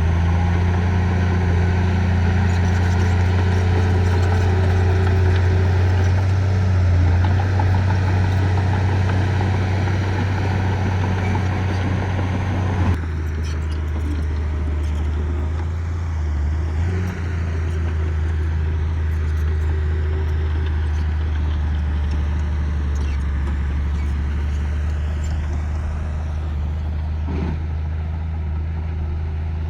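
Heavy construction machinery engine running steadily with a deep, even hum. About 13 s in, the higher-pitched noise drops away abruptly while the low engine hum carries on.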